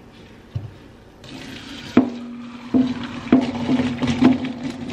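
Water from the pasta pot pouring into the kitchen sink as boiled pasta is drained, starting about a second in. Several sharp metallic knocks ring on over it as the pot is handled.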